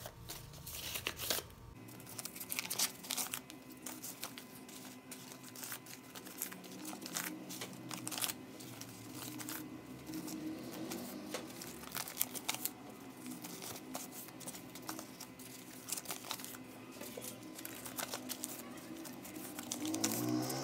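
Paper banknotes (Brazilian real notes) crinkling and rustling in irregular crackles as hands unfold, straighten and sort a pile of crumpled notes for counting.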